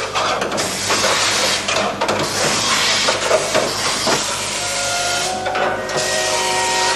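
Compressed-air spray guns hissing in long bursts with brief breaks while a car body is sprayed.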